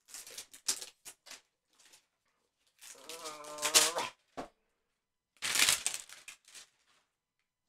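Cardboard trading-card hanger box being handled: light taps and scrapes, a brief pitched, hum-like sound about three seconds in, and a short burst of rustling about five and a half seconds in.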